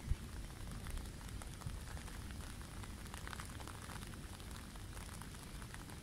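Wind buffeting the microphone, a gusty low rumble, over a faint steady wash of flowing river water with scattered light crackles. A brief bump of wind just after the start.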